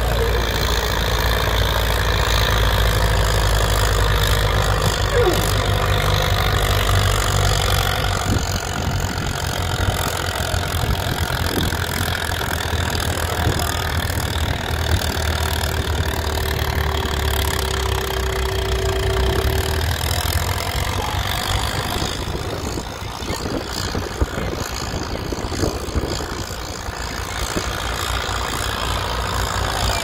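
Farm tractor engines idling. A strong, even low engine hum for the first several seconds gives way to a rougher, lighter engine sound, with a steady single tone for a few seconds midway.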